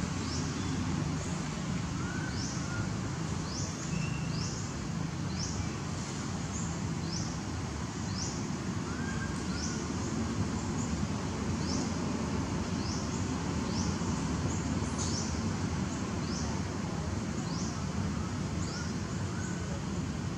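Outdoor ambience: a short, high, rising chirp repeated about once a second over a steady low rumble, with a few softer chirps now and then.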